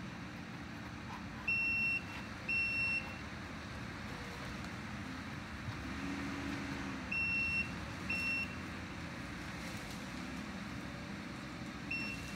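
Kubota compact track loader running steadily at a distance while working into trees, its backup alarm beeping in two pairs of half-second beeps and once more briefly near the end.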